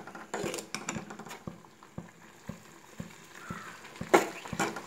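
A ladle stirring thick semolina upma in a metal kadai: a run of short knocks and scrapes of the ladle against the pan, roughly two a second, with the loudest knock about four seconds in.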